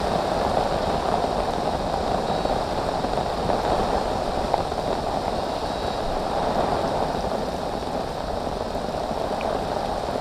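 Heavy rain pouring steadily, heard from under a fishing shelter, with the rain hissing on the lake surface and the fabric overhead.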